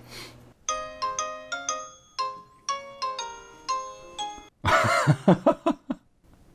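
KakaoTalk video-call ringing tone from a Samsung Galaxy Note 9: a chime-like melody of bright notes, about two a second. It stops about four and a half seconds in as the call connects, and a short loud burst of voice and noise comes through the phone's speaker.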